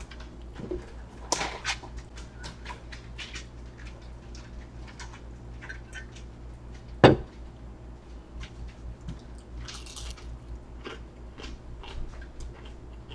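Quiet eating sounds: scattered small crunches and clicks of a person eating takeout food, with one sharp knock on the table about seven seconds in, over a steady low hum.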